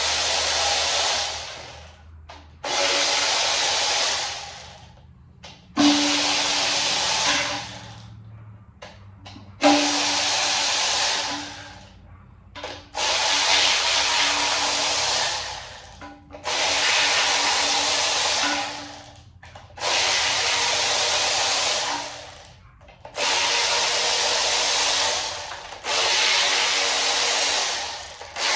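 Cordless power tool on an extension spinning out oil pan bolts, in about nine bursts of roughly two seconds each with short pauses between.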